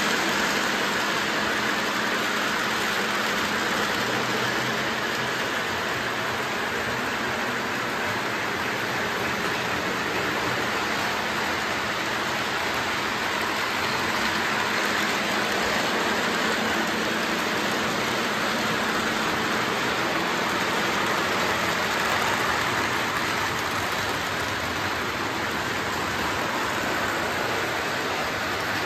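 Model trains running on the layout's three-rail track: a steady rolling whir that holds an even level throughout, with no pauses or distinct clicks.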